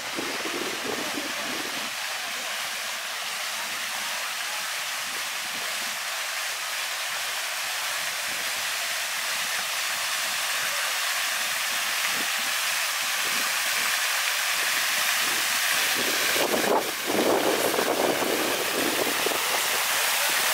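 Fountain water jetting and splashing down into its basin: a steady hiss that grows gradually louder as the fountain is approached.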